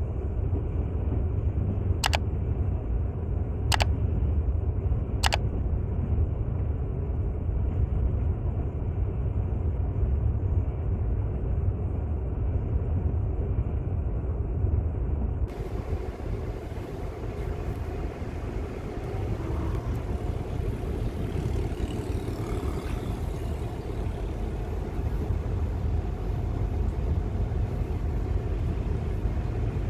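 Passenger train running, heard from inside the carriage as a steady low rumble. Three short sharp clicks come a few seconds in. About halfway through, the sound turns brighter and hissier.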